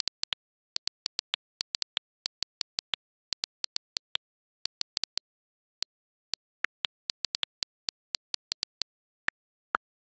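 Typing sound effect: rapid, irregular key clicks, several a second, with dead silence between them, keeping pace with text typed letter by letter. A couple of lower, louder clicks come near the end.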